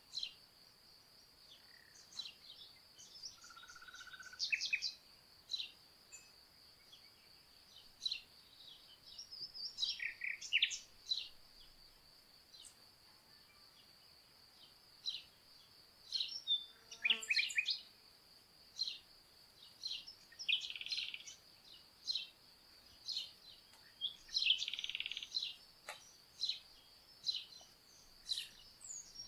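Crickets trilling steadily, with songbirds, nightingale and sparrow among them, calling in short, scattered chirps and trills over the top.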